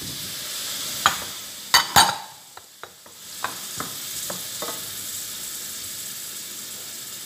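Shrimp and cauliflower sizzling in olive oil in a hot stainless steel frying pan. There are a few sharp knocks about one and two seconds in as the florets are tipped in from a bowl. The sizzle briefly dies down, then picks back up, with light clicks of a utensil stirring the pan.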